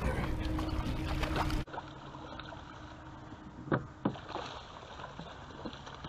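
A loud low rumble with a steady hum, which cuts off suddenly about a second and a half in. Then a hooked fish splashes and thrashes at the water surface, with two sharp splashes close together a little past the middle.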